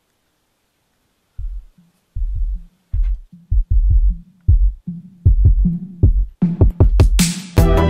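Background music starting after a second or so of silence: a pulsing deep bass beat that builds, with bright cymbal-like hits coming in near the end as the full track starts.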